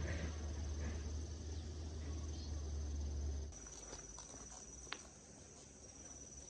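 Insects chirring steadily in one high pitch over a low steady hum that stops abruptly about three and a half seconds in, with a single sharp click near the end.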